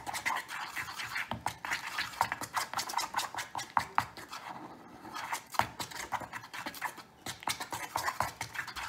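Metal mixing tool stirring frosting in a metal muffin tin: quick, uneven scraping and light clicking of metal against the cup, with short lulls around the middle.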